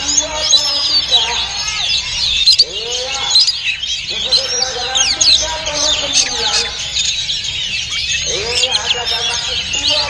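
Oriental magpie-robin and many other caged songbirds singing at once: a dense, unbroken run of quick whistles and chirps, with people talking underneath.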